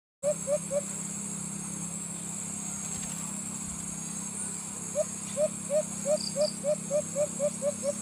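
White-eared brown dove (alimokon) calling: three short hooting notes, then after a pause a quickening run of about a dozen, each note rising slightly. A steady high buzz runs in the background.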